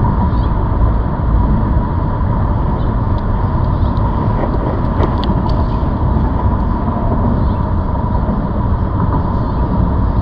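Steady rumble and wind noise from riding a ZOOZ electric bike, with a steady thin whine and a few faint ticks midway.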